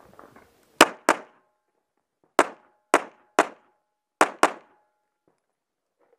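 Seven pistol shots fired in a practical-shooting stage run. A quick pair comes about a second in, three single shots follow over the next two seconds, and another quick pair lands a little after four seconds.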